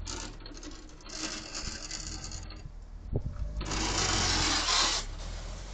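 A car's engine running low with tyres hissing on the wet, slushy road as it pulls away. The hiss grows loud for about a second past the middle.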